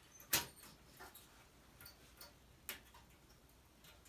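Two sharp clicks about two and a half seconds apart, with a few faint ticks between, from the fluorescent backlight tubes and plastic fittings of a flatscreen TV being handled during disassembly.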